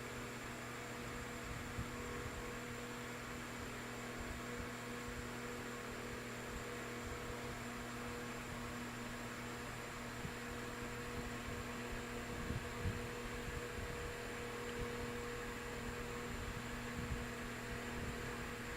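Steady electrical mains hum, with a few faint knocks from handling about two-thirds of the way through.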